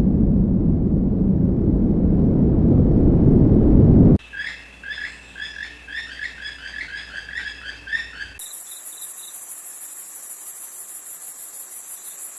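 A songbird calling a short chirp over and over, about three times a second. Before it, about four seconds of loud low rumbling noise cuts off abruptly. After it comes a high, fast-pulsing buzz.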